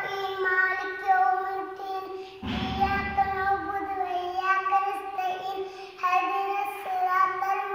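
A young girl singing solo, holding long, steady notes with short breaks for breath. There is a brief low rumble on the microphone about two and a half seconds in.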